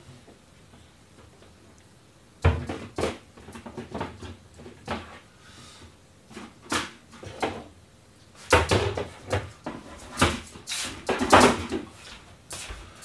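Kitchen clatter: a string of knocks and clunks from cupboards and utensils being handled, starting a couple of seconds in and busiest near the end.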